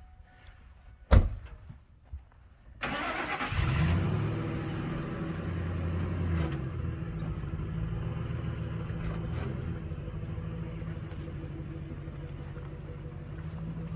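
A sharp thump, then a pickup truck's engine is cranked and starts, revs up briefly and settles into a steady run.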